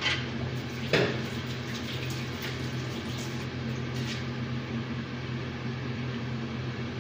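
Kitchen clatter of dishes being handled: a sharp knock about a second in, then a few lighter clicks over the next three seconds, over a steady low hum.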